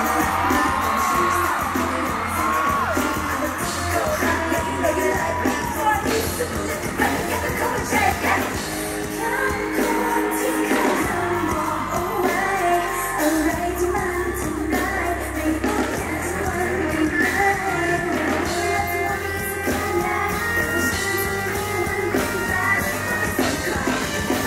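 Live pop song from a girl group: female voices singing over a backing track with a steady heavy bass beat, played through the stage sound system.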